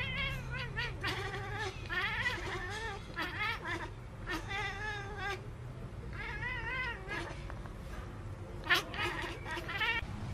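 Tabby cat making a run of warbling, trilling chirps and meows, about eight calls with short pauses between them. A sharp click about three-quarters of the way through.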